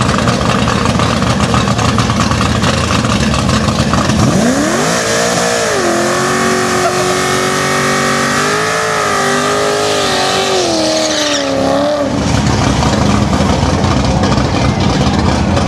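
A Holden Commodore's LS1 V8 rumbles at low revs, then revs sharply about four seconds in. It is held high with a wavering pitch for about eight seconds while the rear tyres spin and squeal in a burnout, and drops back to a lower rumble about twelve seconds in.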